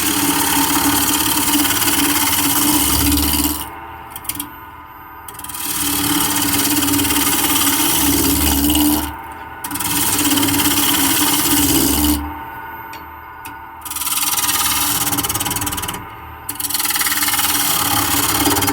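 5/8-inch bowl gouge cutting a spinning square mahogany block on a wood lathe turning at about 1,200 RPM, roughing off the corners: rough, loud cutting noise in five passes of a few seconds each. In the short pauses between passes only the lathe's steady hum is left.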